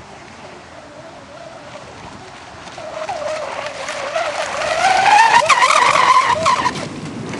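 Lehner brushless electric motor of a Jolly RC racing catamaran at speed: a high whine that rises in pitch as the boat comes close, loudest about five to six seconds in, and stops about seven seconds in. Before it, the motor is faint under wind noise.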